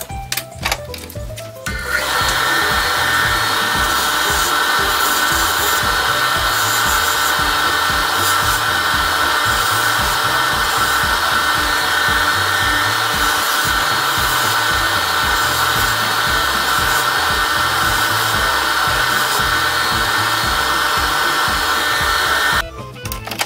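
A power tool's pink abrasive wheel spinning, switched on about two seconds in and running with a steady high whine until it cuts off suddenly near the end. Before it starts, a few short scrapes of a hand file; jazz background music plays underneath.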